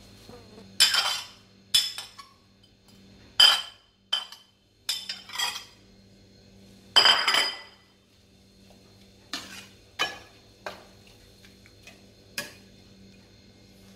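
Steel ladle clinking and scraping against a ceramic plate and an aluminium soup pot as chopped greens are pushed into the pot and stirred: about a dozen irregular clinks, the loudest about seven seconds in, over a faint steady low hum.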